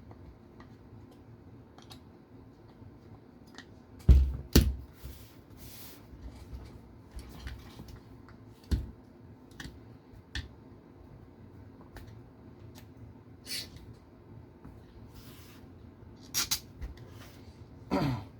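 Scattered clicks and knocks of a hex driver and small metal and plastic RC car parts being handled while a chassis plate's screws are loosened. The loudest is a pair of knocks about four seconds in, with a few more later.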